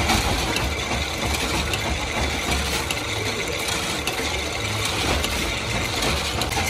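Automatic lamp-holder screw-shell forming machine running: a steady mechanical clatter of gears, cams and linkages, with many small metallic clicks.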